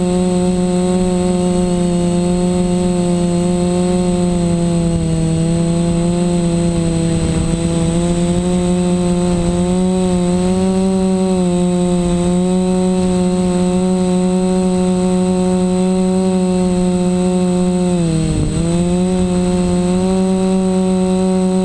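Quadcopter's four brushless motors (DJI 920KV) and propellers whining steadily in flight, heard close from the onboard camera. The pitch wavers a little with throttle and dips briefly near the end before climbing back.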